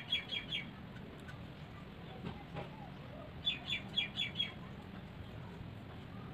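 A small bird chirping in two quick runs of about five short high notes each, one at the start and one about three and a half seconds in, over a faint low steady hum.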